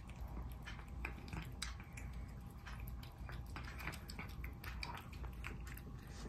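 A cat chewing and eating food: a run of small, irregular clicks and smacks.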